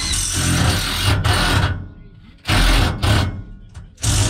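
A power drill run in three bursts, the first and longest about two seconds, driving fasteners overhead into the underside of the floor.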